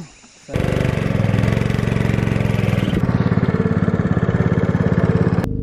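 Small boat's motor running steadily with an even, fast pulse. It starts abruptly about half a second in and cuts off sharply near the end, dropping to a quieter engine sound.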